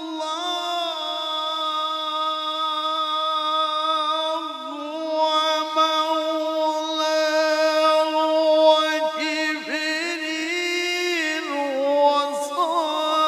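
Male Quran reciter's voice in melodic mujawwad-style recitation, holding one long high note that wavers in ornamental melisma and steps down in pitch near the end.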